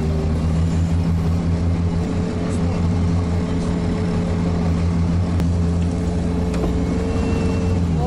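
All-terrain vehicle's engine running steadily under way, heard inside the cab, holding an even pitch.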